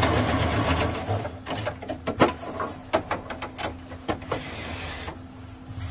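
Brother domestic sewing machine running as it stitches a seam, stopping about a second in. Then a string of separate clicks and knocks as the fabric is handled at the machine.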